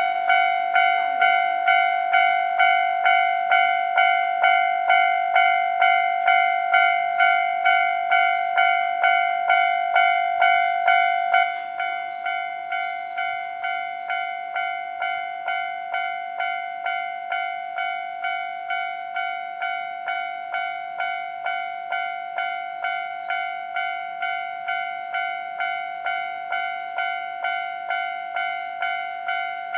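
Japanese railway level-crossing warning bell ringing steadily, an even two-tone-free clang repeating about one and a half times a second. About eleven seconds in it drops to a noticeably quieter level and keeps ringing.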